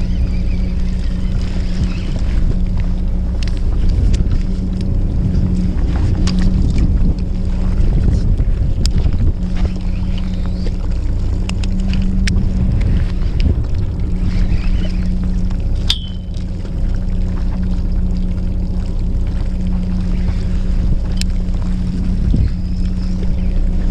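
A fishing boat's engine running steadily, a low hum that does not change, with a few light clicks scattered through it.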